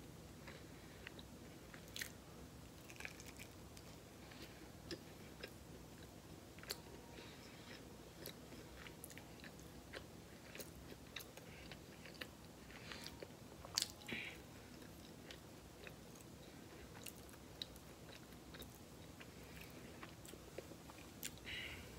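Faint chewing of a Hot Pocket, with soft, scattered mouth clicks and smacks and one sharper click a little past the middle.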